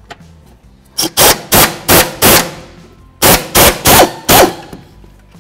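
Half-inch air impact wrench, fitted with a 10 mm socket and swivel, hammering in short trigger bursts, about three a second, in two runs of four or five, as it loosens a 10 mm bolt.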